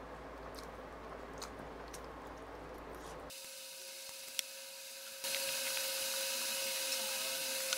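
Faint eating sounds of a man tearing boiled chicken apart by hand and chewing, with a few soft clicks, over a steady hiss. About three seconds in, a steady hum tone sets in, and the hiss turns louder about two seconds later.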